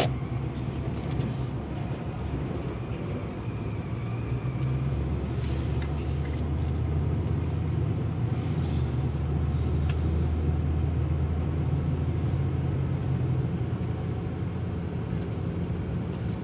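Car engine and road noise heard from inside the cabin while driving: a steady low hum that grows a little louder in the middle, with a single sharp tick about ten seconds in.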